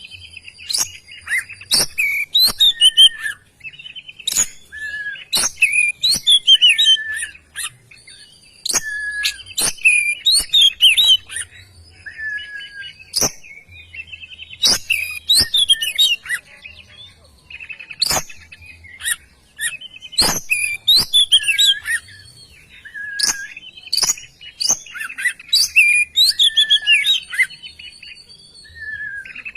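An Oriental magpie-robin sings in full, vigorous song. Its fast, varied phrases mix sharp clicks, whistles and short falling notes, with only brief pauses between them.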